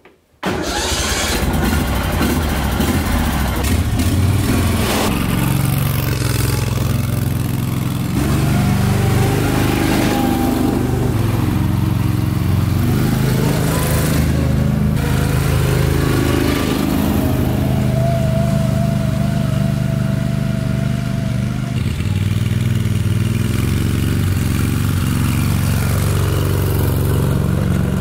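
Argo amphibious ATV's engine running as the machine drives, its pitch rising and falling with the throttle, with a thin whine coming and going in the middle.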